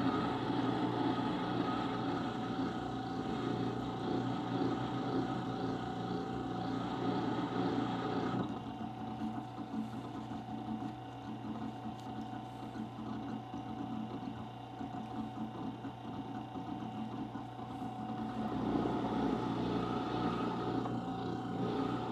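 Rikon 8-inch wet sharpener's motor running with a steady hum while a chisel's edge is polished against its spinning leather strop wheel. A rough rubbing noise rides over the hum for the first eight seconds or so, drops away, and comes back near the end.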